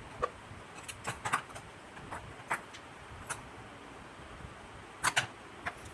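Irregular light clicks and taps of hard plastic parts being handled: a torch's battery pack and wiring being fitted into its plastic housing, with a close pair of clicks about five seconds in.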